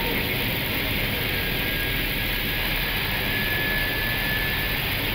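Steady rush of airflow and jet engine noise inside an Airbus A320 cockpit on final approach, just after the landing gear is selected down. A faint high whistle runs through the middle of it for about three seconds.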